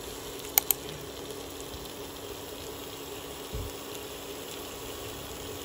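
Marinated pork pieces sizzling on a grill pan over an induction cooktop: a steady frying hiss with a low steady hum underneath and two sharp pops about half a second in.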